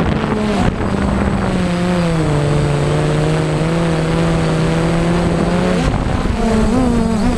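Drone's electric motors and propellers whining steadily over a rush of prop wash. The pitch drops a little about two seconds in as the motors slow, then wavers up and down near the end with throttle changes.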